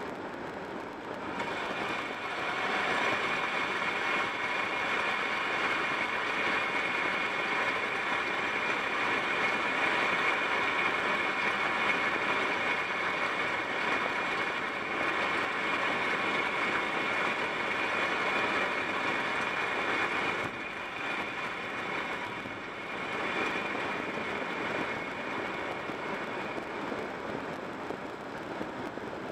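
Steady tyre and wind noise of a car cruising at highway speed, heard from inside the cabin; it eases a little about two-thirds of the way in.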